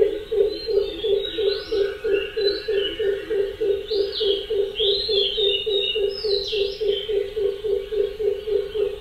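A low animal call pulsing steadily about three or four times a second, with birds chirping and whistling over it. The pulsing stops right at the end.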